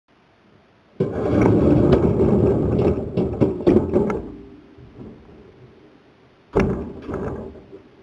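Dishwasher door being swung shut over the racks, with rattling and knocking for about three seconds, then a second sudden knock with a short rattle a couple of seconds later.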